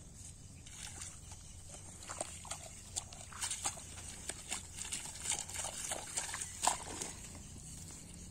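Hands digging into a wet mud bank at a mud crab burrow: irregular squelches, scrapes and rustles of mud and grass that come thicker and louder from about two seconds in.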